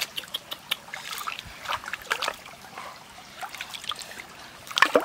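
Shallow stream water trickling and splashing as hands rinse something in it, with scattered small splashes and clicks.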